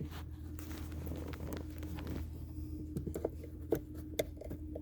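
A small hand tool scraping and clicking against the gear shifter's wire locking pin and plastic housing as the pin is worked out: scratchy fiddling at first, then a few separate sharp clicks in the last couple of seconds. A steady low hum runs underneath.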